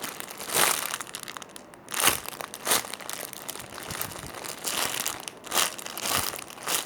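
Plastic crinkling in several short rustles as a squishy toy is handled.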